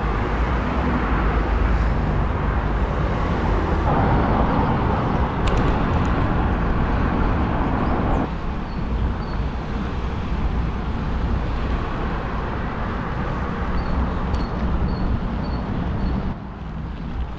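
Wind buffeting the microphone and tyre noise while cycling along a road, with motor traffic going by. The rush drops a little about eight seconds in, and a few faint high chirps come near the end.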